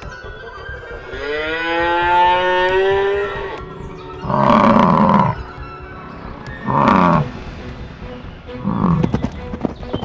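Cattle calling: one long, slightly rising moo starting about a second in, then three shorter, louder bellows, the last one brief.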